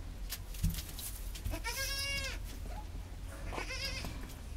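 Goat bleating twice, about two seconds apart. The first call is high-pitched, drawn out, rising then falling; the second is shorter and wavering.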